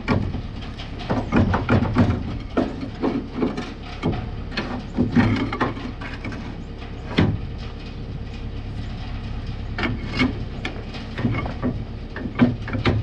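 Irregular metal knocks and clanks from hammering at a cutting wheel on a corn chopper head to work it loose. There is a single loud knock about seven seconds in and a quicker run of strikes near the end, over a steady low rumble.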